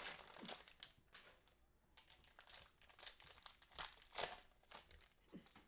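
Cellophane trading-card pack wrappers crinkling in irregular bursts as cello packs of football cards are handled and opened, loudest about four seconds in.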